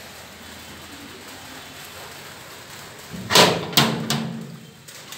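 A wooden door is pushed and knocked open about three seconds in: several loud knocks and a rattle in its frame lasting just over a second. Before that there is a steady low hiss.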